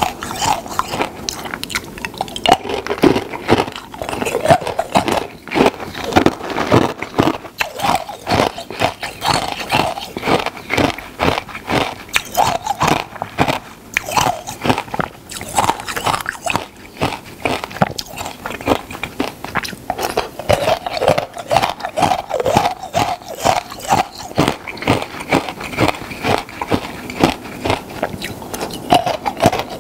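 Close-miked biting and chewing of hard, crunchy food, with a rapid, irregular run of loud crunches mouthful after mouthful.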